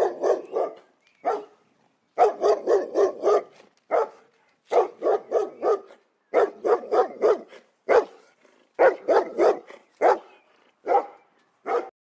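A dog barking in quick runs of several short, sharp barks, broken by brief pauses throughout.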